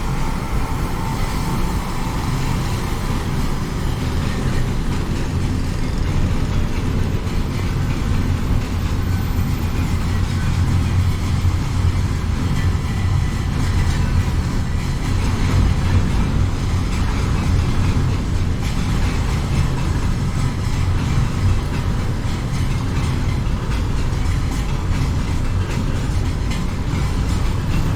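City train running past, heard from high up in a building: a steady low rumble with a faint wheel clatter, swelling a little toward the middle.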